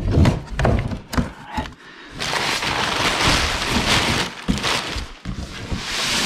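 Packing paper crumpled and stuffed into a cardboard box over boxed parts, a dry rustling and crinkling that starts about two seconds in, with knocks of cardboard and parts being handled before and after it.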